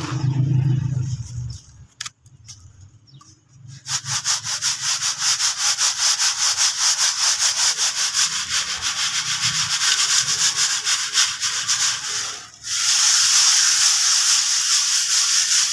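Dry crumbled sand-cement powder being rubbed through a sieve by hand, a fast rhythmic gritty scraping. About three-quarters of the way in it becomes a steadier, louder hiss of grit on mesh.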